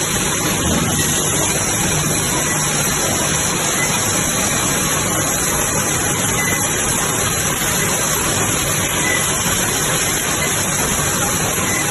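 Wire mesh welding and bending production line running: a steady, loud machine noise with a constant high hiss.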